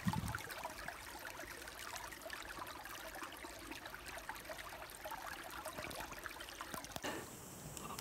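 Small, shallow woodland brook trickling steadily over and around rocks.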